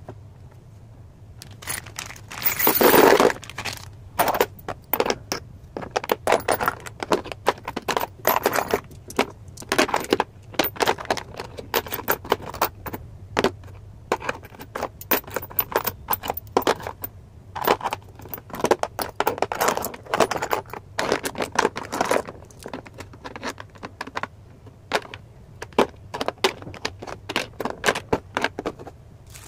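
Drill kit and its packaging handled by hand: repeated clatters, clicks and scrapes of hard parts, with a louder rustle about three seconds in.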